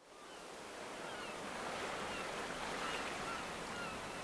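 Steady wash of surf and waves on a beach, fading in from silence over the first second or so, with short high chirps scattered over it.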